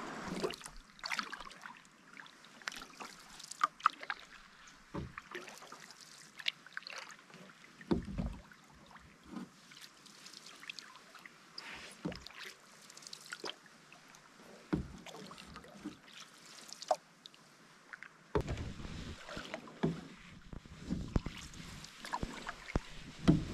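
A wooden canoe being paddled on calm water: the paddle dips and pulls through the water with drips and small splashes, along with scattered sharp clicks and a few low knocks and thumps every few seconds.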